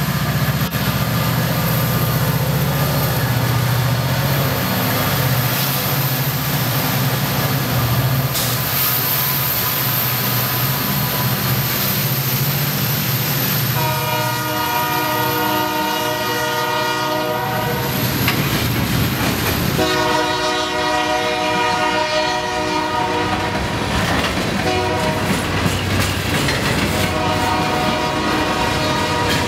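Union Pacific SD70M diesel locomotives pass with a deep engine drone, and then the freight cars rattle and clack over the rails. About fourteen seconds in, a locomotive horn sounds the grade-crossing signal: long, long, short, then long again.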